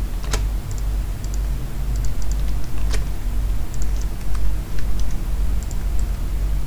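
Computer keyboard keys clicking now and then, a few separate keystrokes rather than steady typing, over a steady low hum.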